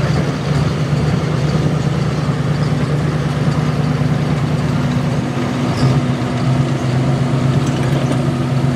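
Diesel pulling truck's engine idling steadily at the end of its pull.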